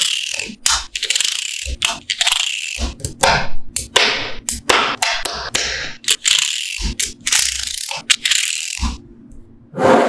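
Small magnetic balls clicking and rattling as rows of them snap down onto a stack of balls, in quick runs of dense clicks about a second long, with a quieter stretch near the end.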